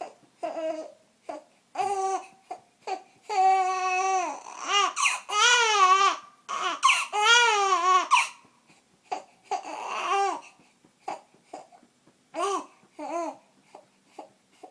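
Baby fussing and crying: short high whimpers, then a run of long wavering wails in the middle, then short whimpers again.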